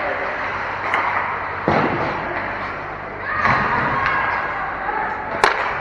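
Ice hockey play in a rink: sticks and puck knocking, with a heavier thud a little under two seconds in and a sharp crack near the end, over a steady hall noise of skates and players.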